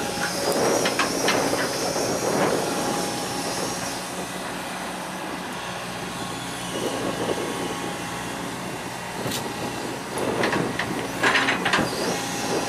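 Heavy diesel machinery running with a steady low engine drone. A high metallic squeal runs through the first few seconds, and several sharp clanks come near the end.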